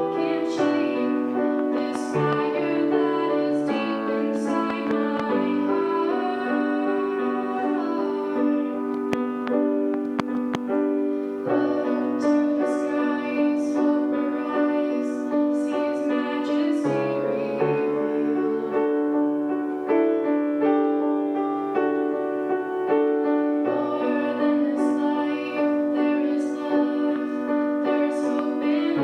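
Piano playing a worship song, with a woman singing over it.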